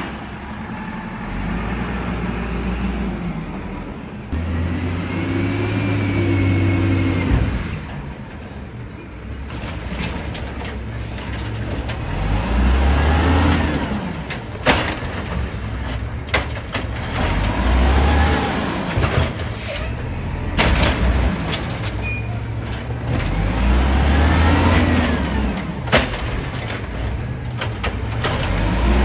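Volvo WX64 refuse truck with an Amrep Octo automated side-loader at work: the engine revs up and settles again every few seconds, with a held whine once, as it drives the hydraulic lifting arm. Several sharp knocks and air-brake hisses are heard between the revs.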